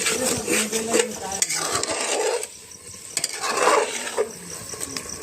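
Mutton frying in masala in a metal pot, stirred with a metal spoon: the spoon scrapes and clinks against the pot over a steady sizzle, with a short lull just past the middle.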